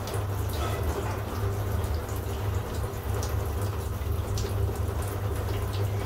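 Shower water running steadily into a bathtub in a steady hiss.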